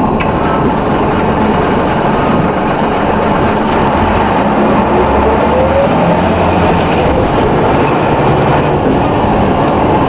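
Interior of a Scania K93CRB Wright Endurance single-deck bus on the move: its nine-litre straight-six diesel and road noise run steadily and loudly, with a whine that rises in pitch about halfway through as the bus picks up speed.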